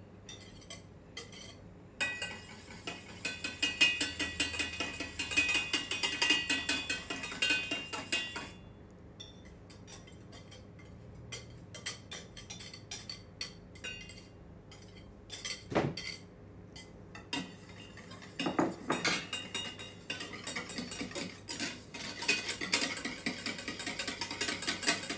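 Wire whisk clinking rapidly against a small stainless steel saucepan as beaten egg whites are stirred into egg yolks, lemon juice and cornstarch for avgolemono sauce. The whisking is fast and busy from about two seconds in, softer through the middle, and picks up again near the end.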